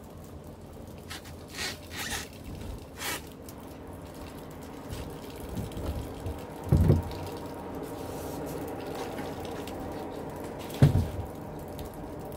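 Water running and trickling steadily, coming up about five seconds in, from the water system inside the barrel box. Two dull, heavy thumps break in, a few seconds apart, as the wooden lid is handled.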